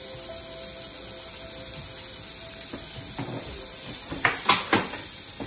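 Sliced onions and ginger sizzling in oil in an aluminium wok, a steady hiss. A few sharp knocks come close together about four and a half seconds in.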